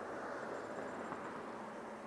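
Street traffic noise with a car driving past close by, a steady hiss that swells slightly in the first second.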